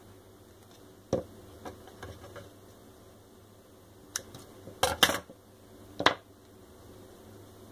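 Scissors being handled and snipping: a scattered series of sharp clicks and snaps, the loudest about five and six seconds in.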